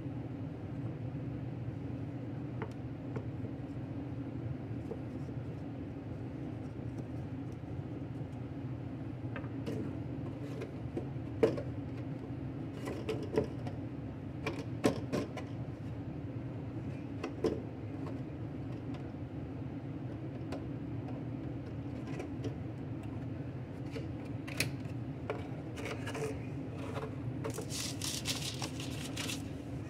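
Scattered light clicks and knocks from a metal flan mould being handled, over a steady low hum. Near the end comes a brief crinkling rustle as a clear plastic cake dome is fitted over the mould.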